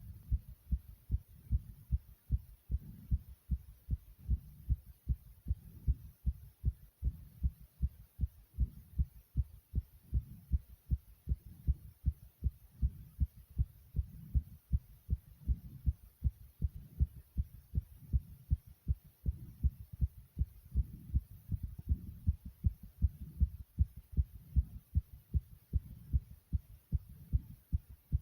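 Human heartbeat, beating fast: quick, regular low thumps, a little over two a second.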